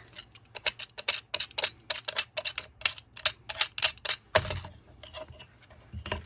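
A sharp knife cutting through a stack of folded paper: a quick series of short, crisp cutting strokes, about three a second, thinning out after about four and a half seconds.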